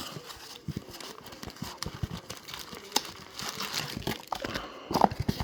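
Rustling and crinkling of packaging with scattered light clicks and taps, as a box of trading-card packs is opened and handled.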